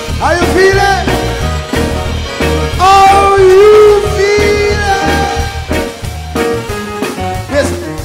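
Live reggae band playing, with drums and bass keeping a steady beat under a voice singing long held notes; the first slides up in pitch near the start, and the loudest is held for about a second around the middle.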